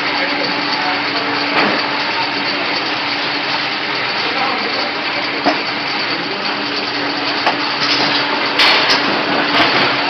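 Oil filling machine running through a fill, its pump giving a steady low hum over a broad rushing noise, with a few sharp clicks near the end.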